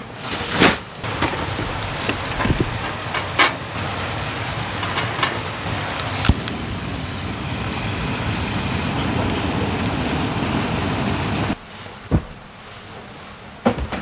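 Several knocks and bumps from a camping bed being carried and set down on a wooden camp deck, over a steady rushing noise. The rushing cuts off suddenly near the end.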